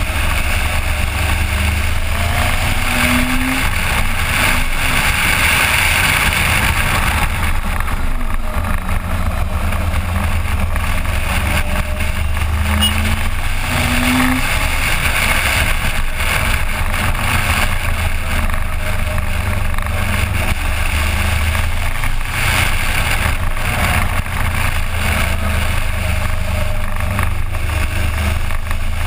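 Suzuki GSX1400 inline-four motorcycle engine running under way, recorded on an onboard GoPro, with a few short rises in pitch.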